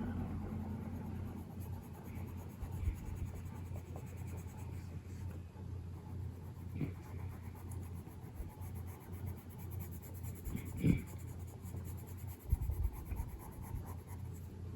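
Coloured pencil scratching softly on a paper colouring page, over a steady low hum, with a few soft knocks.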